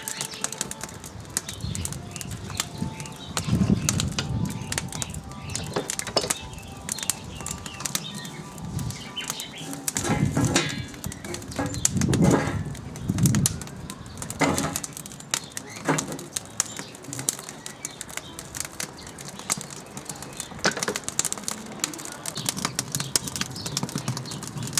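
Wood fire crackling in the steel firebox of a barbecue, with strong gusts of wind buffeting the microphone, loudest about four seconds in and again around ten to thirteen seconds in.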